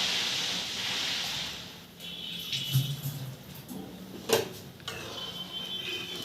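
Water poured into a cooking pot of curry, a hissing rush that stops about two seconds in. A sharp knock of a utensil against the pot follows about four seconds in.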